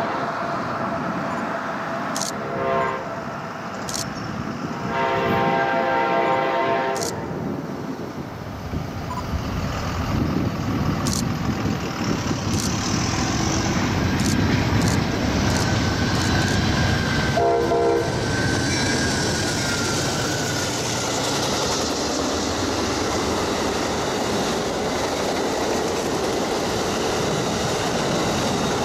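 Amtrak Empire Builder passenger train approaching and passing. Its locomotive horn sounds three blasts: short, long (about two seconds), then short again after a pause of about ten seconds. Under the horn the train's rumble builds from about nine seconds in, and the passenger cars roll steadily past near the end.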